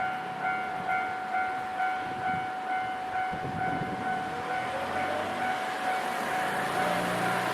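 Japanese railway level-crossing warning alarm ringing in a steady repeating electronic tone, a little over two strokes a second. A train approaches and passes, its running noise building from about halfway through.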